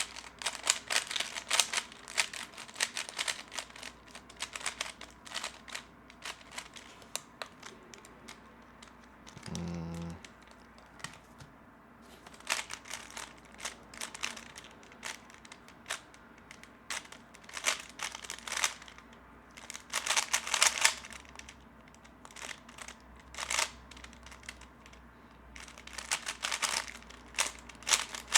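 A 3x3 Rubik's cube being turned fast: rapid runs of plastic clicks and clacks from the layers, in clusters with a few short pauses between them.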